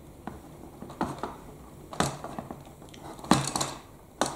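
Small screwdriver prying and scraping at the plastic clip tabs of a Bruder toy telehandler, giving scattered sharp plastic clicks and creaks, with a quick cluster of them a little after three seconds in.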